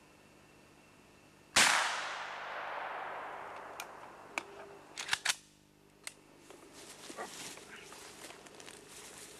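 A single gunshot about a second and a half in, its report echoing and dying away over about two seconds through the forest, followed by a few sharp metallic clicks and handling noises.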